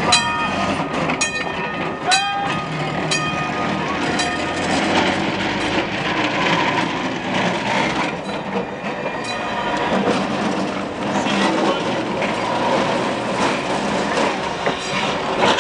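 New Orleans Public Service streetcar 832 running past and pulling away on its rails, wheels rumbling and clicking steadily. Four sharp ringing clangs about a second apart sound in the first three seconds.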